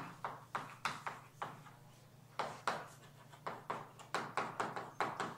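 Chalk writing on a chalkboard: a quick series of short taps and scrapes as each stroke lands, with a brief pause a little under halfway.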